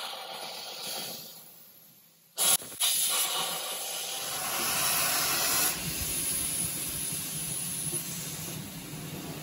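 Steam hissing at the steam-driven servo motor that switches the snow blower's steam engine between twin and compound working, during its test run. A short sharp blast comes about two and a half seconds in, then a steady hiss that slowly eases.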